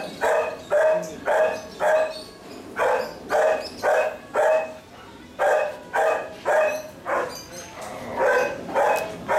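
Belgian Shepherd puppy barking in short, sharp barks, about two a second with a couple of brief pauses, in play while the litter tugs at a cloth.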